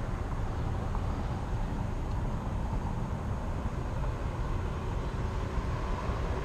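Steady city street background noise: a low traffic rumble with no distinct events standing out.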